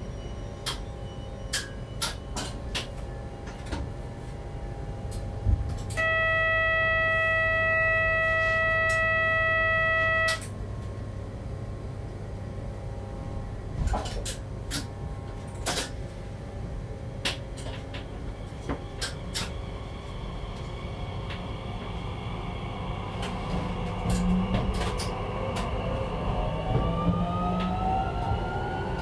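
Cab interior of a Z50000 electric multiple unit on the move: steady running noise with scattered clicks and knocks from the track. About six seconds in, a loud, steady electronic beep sounds for about four seconds and cuts off sharply. Near the end, as the train slows, whining tones slide upward.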